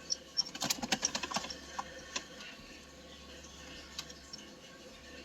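Quick light clicks of hand tools on metal as a bolt is worked into the short-throw shifter's mounting threads. There is a burst of them about a second in, then a few scattered clicks. The bolt is binding, which is put down to a damaged spot on the threads.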